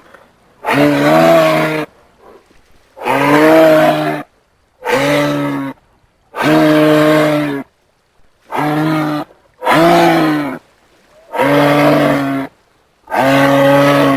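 A giraffe's deep calls, each about a second long at a steady pitch that dips slightly at the end, repeated about eight times with short silent gaps between them.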